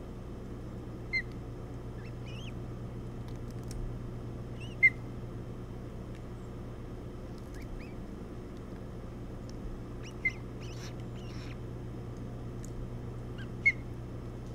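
Ospreys at the nest giving short, sharp chirps, four of them a few seconds apart, with a few fainter thin bird calls between, over a steady low hum.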